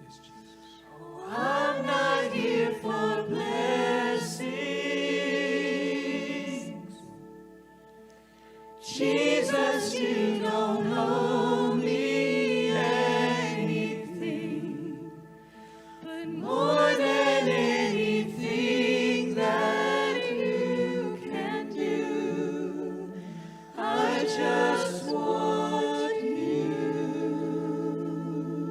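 Worship singing: voices singing a slow song in four long phrases over steady held chords.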